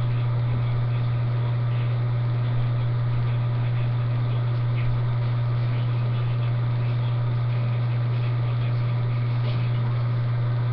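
A steady, unchanging low hum with a faint background hiss.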